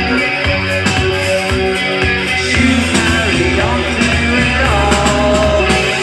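Live rock band playing: electric guitar over bass and drums in a steady groove, in a concert recording.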